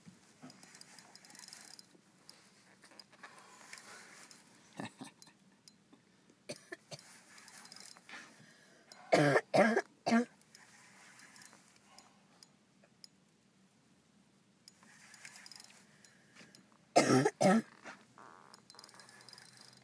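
A person coughing in two short fits of two or three coughs each, about halfway through and again near the end, with faint scattered clicks between.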